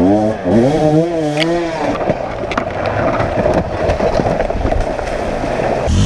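Enduro dirt bike engine revving in rising and falling surges for about the first two seconds as it climbs wet rock. It then runs on as a rougher, crackling roar mixed with rushing water.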